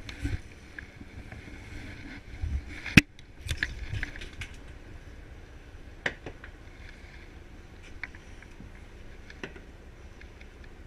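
Scattered clicks and knocks of a conventional fishing reel and rod being handled, the loudest a sharp crack about three seconds in, over the boat's steady low rumble.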